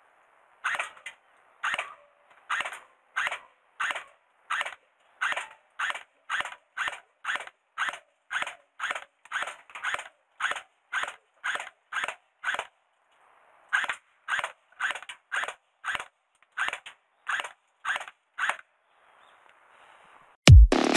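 Tokyo Marui Glock 18C electric airsoft handgun fired one shot at a time in a steady string, about two sharp shots a second, with a short pause about halfway. The shots stop a couple of seconds before the end, and electronic dance music cuts in right at the end.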